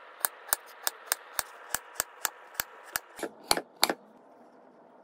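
Chef's knife slicing through a seared, sesame-crusted bonita loin on a wooden cutting board: a steady run of sharp taps, about three a second, as the blade meets the board. Two louder knocks come just before the cutting stops about four seconds in.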